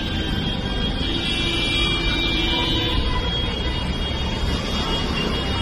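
Steady street traffic noise with vehicle engines running, with faint steady tones over it.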